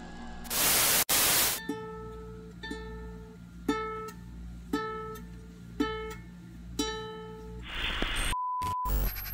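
A single ukulele note plucked six times, about a second apart, over a low steady hum. A burst of static opens it, and a brief steady electronic beep comes near the end.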